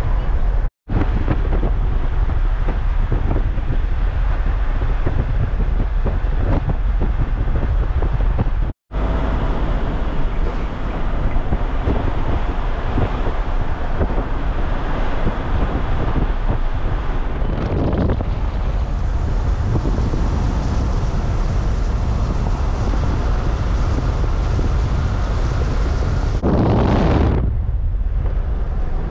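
Steady road rumble and wind buffeting the microphone from a vehicle driving at speed along a highway. The sound cuts out for an instant twice in the first nine seconds, and a brief louder whoosh rises and falls near the end.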